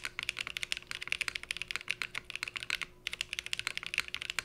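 Continuous fast typing on a Cycle 8 mechanical keyboard fitted with HMX Ice Cendol switches and GMK Lime keycaps on a polycarbonate plate with no foams and a split O-ring mount: a dense run of keystrokes with a short pause about three seconds in. The keystrokes are clacky on the upstroke, with a deeper bottom-out.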